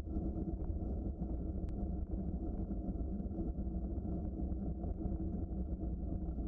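Steady low rumble of a bicycle rolling along a trail: tyre noise mixed with wind buffeting the microphone, unchanging throughout.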